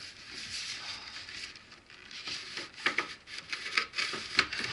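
Cardboard scraping and rubbing as a printed toy box is slid out of a tight-fitting cardboard shipping box. This is followed by several sharp knocks and taps of the cardboard being handled, the loudest about three and four and a half seconds in.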